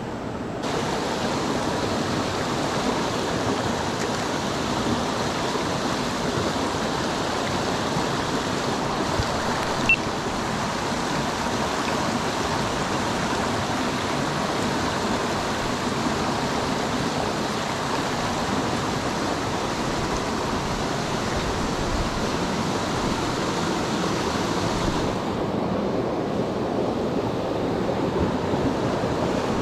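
Small mountain creek's water rushing steadily, with a single sharp click about ten seconds in.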